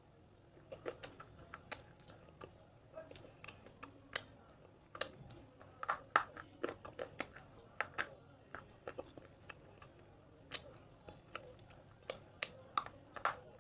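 Close-up crunching of something brittle: irregular crisp cracks and crackles, a few to several a second, some sharply louder than others.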